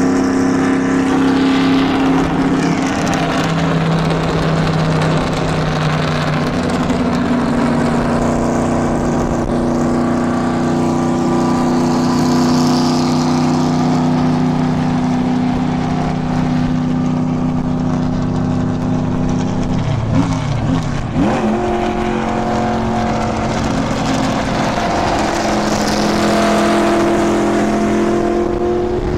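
NASCAR stock car's V8 engine running at a steady pitch, recorded tracking alongside the car. About twenty seconds in the note wobbles and breaks briefly, then settles into a new steady pitch.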